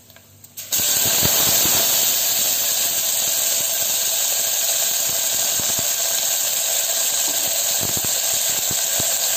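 Sliced onions hitting hot oil in an aluminium pot and sizzling, a loud steady hiss that starts suddenly about a second in, with a few faint clicks.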